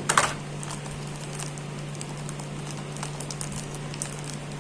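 Light plastic clicks and taps from handling a plastic HP wireless mouse, sparse and irregular, over a steady low hum; a louder knock comes right at the start.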